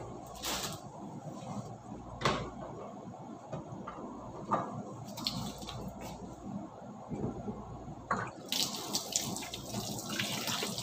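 A few light knocks, then near the end a tap is turned on and water runs steadily into the sink.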